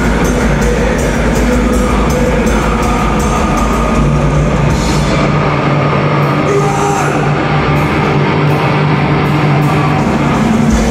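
Black metal band playing live, with distorted guitars and fast drumming. About five seconds in, the bass drums drop out, leaving held guitar chords. The full drumming comes back at the very end.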